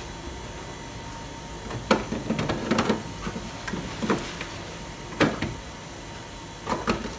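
Plastic food storage containers handled on refrigerator shelves: a series of short, light knocks and clatters as they are picked up, set down and bumped against the shelves and drawer, loudest about two and five seconds in.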